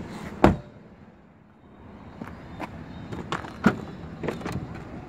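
A 2018 Chevrolet Tahoe's rear side door slamming shut with a single loud thud about half a second in. It is followed by a series of lighter knocks and clicks as the liftgate handle is reached for and gripped.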